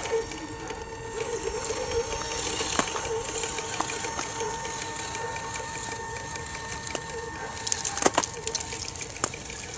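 Axial SCX10 RC crawler's electric motor and gears whining steadily as it wades through shallow water, with splashing and a few sharp clacks, the loudest about eight seconds in.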